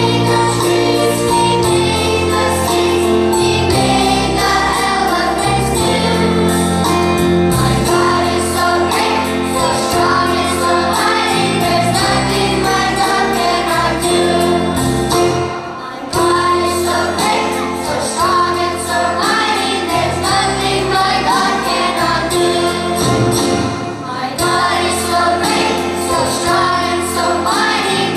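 A choir singing with instrumental accompaniment, steady sustained bass notes under the voices.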